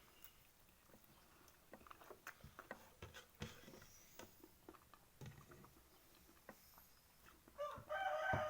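A rooster crowing once near the end, one call of about a second. Before it come scattered faint clicks and taps of eating.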